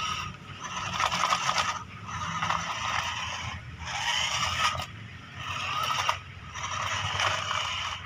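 Small electric motor and plastic gearbox of a wired remote-control toy loader whirring in start-stop bursts of about a second each, about five times, as the toy is driven and turned.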